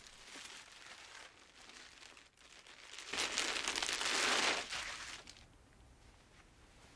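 A plastic bag crinkling and rustling as a folded knitted garment is handled and pulled out of it. It is soft at first and loudest for about two seconds in the middle, then dies away.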